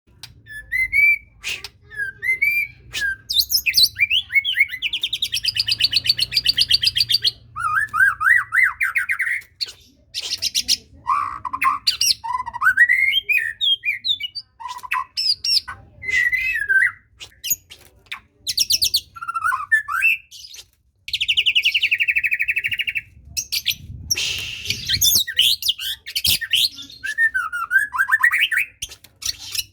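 White-rumped shama (murai batu) singing: a long, varied run of clear whistled phrases sliding up and down, broken by fast buzzy trills and rattles, with only short pauses.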